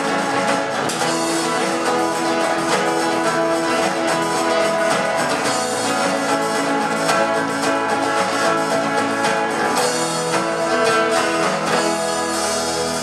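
Band music led by a strummed guitar, playing steadily at full level; these are the last bars of the song before the applause.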